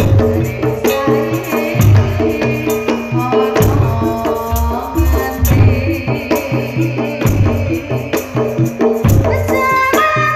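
Javanese gamelan-style campursari band playing: saron metallophones struck with mallets hammer out a repeating melody over regular low drum beats. A woman's high, piercing voice sings long phrases over it.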